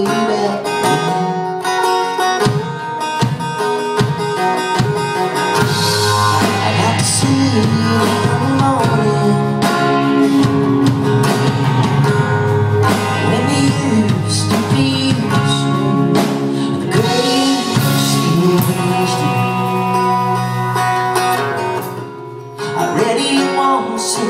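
A live band playing a country-rock song: strummed acoustic guitar, electric guitar and drum kit together, with a brief dip in loudness near the end.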